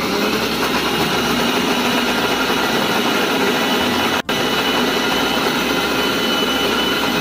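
Electric mixer grinder running at speed with a steady motor whir, blending a wet batter of flour, egg, sugar and water in its steel jar. There is a momentary break about four seconds in.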